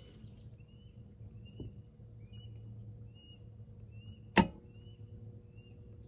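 A single sharp clunk about four seconds in as power is restored to the heat pump at its electrical disconnect, over a steady low hum and small birds chirping.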